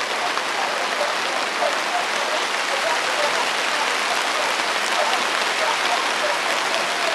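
Steady, even hiss of rain falling, with faint distant voices over it.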